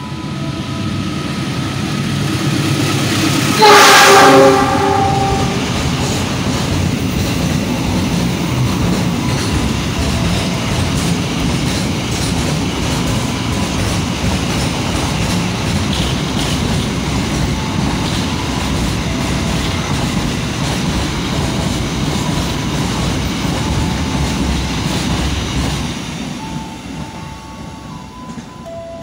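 Container freight train passing through a station. The diesel locomotive sounds its horn in one blast of about a second, around four seconds in, then a long string of container wagons rumbles and clatters past, fading near the end.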